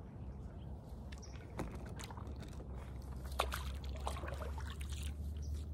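Water lapping and sloshing around a floating dock under a steady low rumble, with a few sharp clicks; the loudest click comes about three and a half seconds in.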